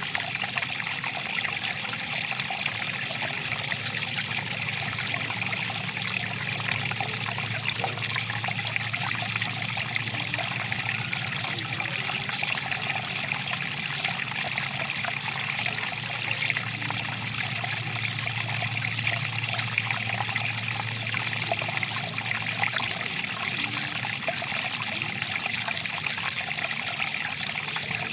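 Stream water flowing and trickling steadily, an even, unbroken rush of water.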